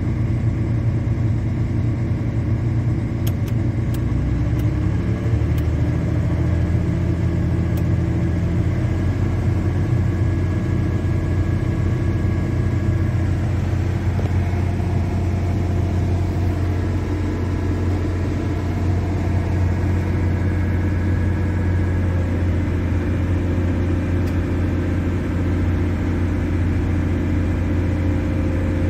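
Volvo EC460BLC excavator's diesel engine, heard from inside the cab, running with a steady low hum. Its note shifts about five seconds in as the speed settles to around 1200 rpm. The engine keeps running without cutting out now that its damaged cam-sensor wiring has been repaired.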